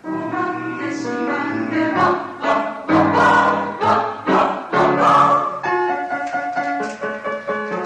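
Mixed choir singing a children's song with piano accompaniment; in the last couple of seconds the sung phrase gives way to shorter, more even piano notes.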